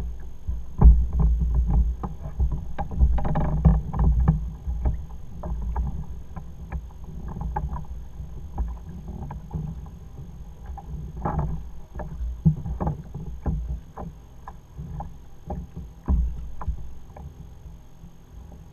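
Irregular knocks, clicks and water slaps on a plastic fishing kayak's hull during a fight with a hooked fish, over a low wind rumble on the microphone.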